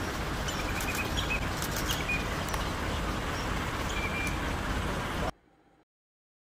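Steady drone of a motor boat's engine, with a few short, high bird chirps over it; the sound cuts off suddenly about five seconds in.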